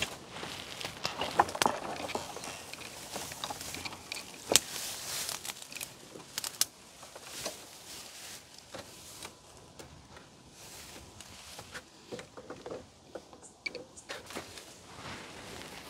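Dry grass and brush rustling and crackling as a rusted KTM RC 200 wreck is dragged upright out of the undergrowth, with sharp irregular knocks and rattles from its loose, corroded frame and panels. Busiest in the first half, sparser later.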